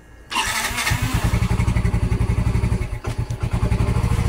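Motorcycle engine catching on its electric starter about a third of a second in, then running at a steady, evenly pulsing idle. The starter works again now that its worn carbon brushes have been replaced.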